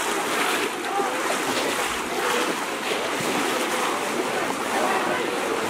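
Pond water splashing and churning steadily as many people wade through it, plunging bamboo polo fish traps and nets down into the water. Faint shouting voices are heard now and then.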